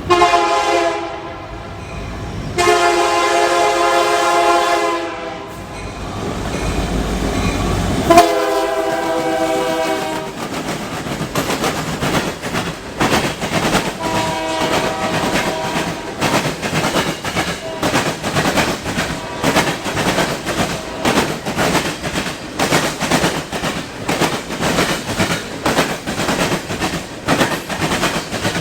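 Locomotive air horn sounding four chord blasts, the last one fainter. From about a third of the way in, the train passes close with a steady, rapid clickety-clack of wheels over the rail joints.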